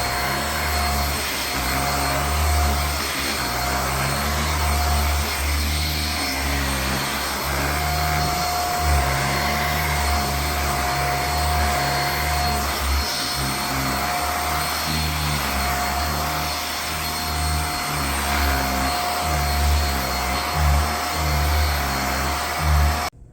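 Raycop Lite handheld allergen vacuum running steadily over a futon, its low hum swelling and dipping unevenly as it is worked across the fabric. The sound stops abruptly near the end.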